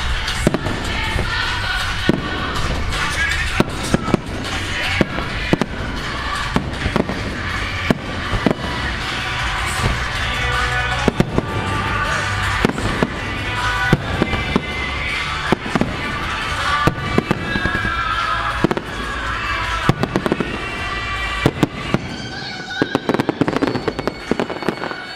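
Aerial fireworks bursting one after another over music played for a show synchronised to music. Near the end comes a quick run of sharper pops.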